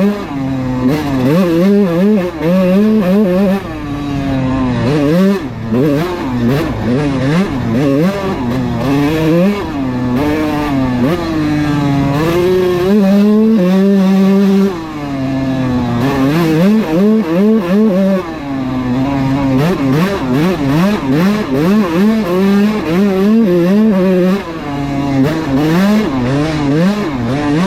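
Kawasaki KX125 single-cylinder two-stroke dirt bike engine ridden wide open. Its pitch climbs and drops again and again as the throttle is worked, and it holds steady for a couple of seconds about halfway through.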